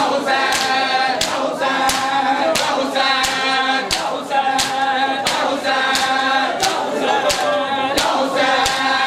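Men chanting a noha together, with the sharp slaps of chest-beating (matam) keeping a steady beat under the chant.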